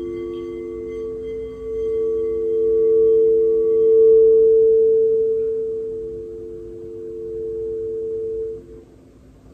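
Crystal singing bowl sung by rubbing a mallet around its rim: a steady ringing tone that swells, eases off and swells again over lower tones from other bowls still ringing. It is stopped suddenly by a hand near the end.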